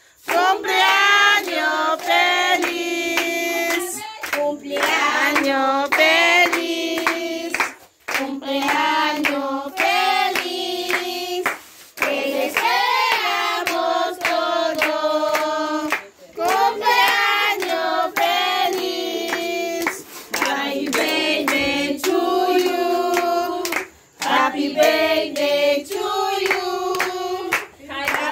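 A group of children and women singing together in chorus while clapping their hands to the beat. The song comes in phrases of about four seconds with short breaks between them.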